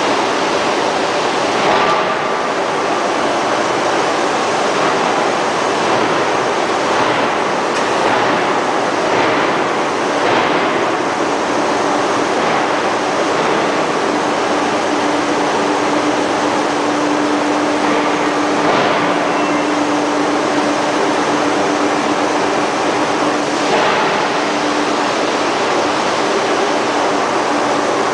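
Ring rolling mill running as it rolls a glowing steel ring, a steady loud mechanical rumble and hiss with a few brief louder knocks. A low steady hum comes in for several seconds past the middle.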